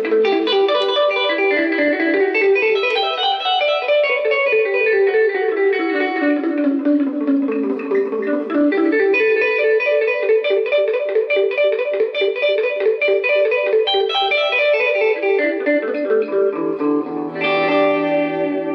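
Hollow-body electric guitar played through the repaired Electra EP-401 digital delay. Quick single-note lines run continuously, with delayed repeats layering over them, and a chord rings out near the end. The delay is passing its echoes again.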